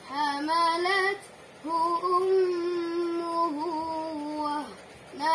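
A boy's voice chanting Quranic recitation in a melodic, sung style: a short rising phrase, then after a brief breath a long held note with a small wavering ornament partway through.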